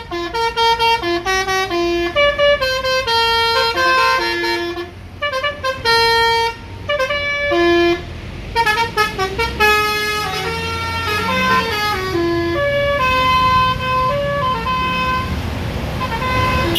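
Indonesian 'telolet' bus horn playing a quick tune of stepped notes, short and longer held tones in turn, the notes overlapping in places. A low vehicle rumble runs underneath, stronger in the second half.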